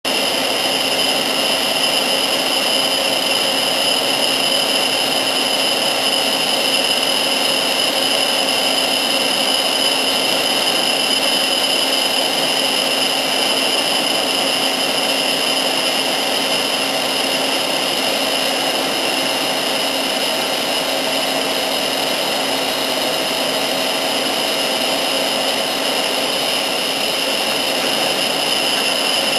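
LC35E CNC machine for toothed circular blades running steadily: an even machine noise with a constant high whine that does not change.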